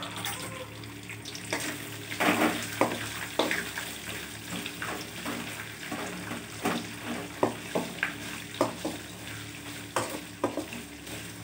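Sliced onions, curry leaves and peanuts sizzling in hot oil in a metal pot, stirred with a wooden spatula that scrapes and knocks against the pot at irregular moments.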